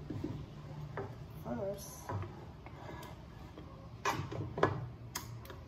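Serving spoon knocking and scraping against a pan and a glass baking dish as tomato sauce is scooped out and spooned in: a string of sharp knocks, the loudest about four seconds in.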